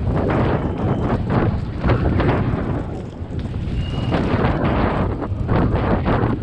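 Wind buffeting the action camera's microphone over the rumble of a downhill mountain bike's tyres on a rough dirt track, with frequent knocks and rattles from the bike going over bumps.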